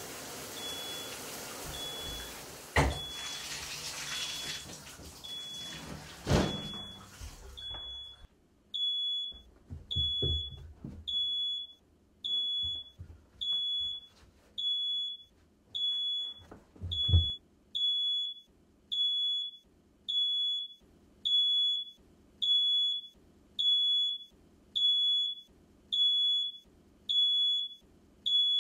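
A high electronic beep repeating evenly, about once a second. For the first eight seconds it sits over a steady hiss broken by two sharp thuds; then the hiss stops and the beeps go on alone, each with a low pulse under it.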